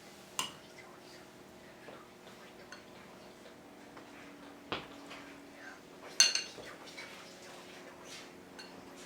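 A spoon clinking against a soup bowl a few separate times while eating beef soup. The loudest clink, about six seconds in, rings briefly.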